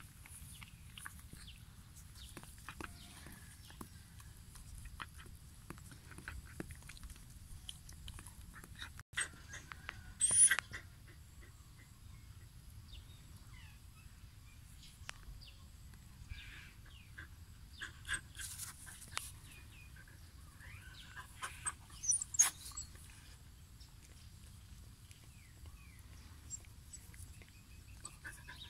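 Dog licking and nibbling at its own coat: faint wet clicks and scratchy ticks, with two short, loud, high-pitched chirps about ten seconds in and again near twenty-two seconds.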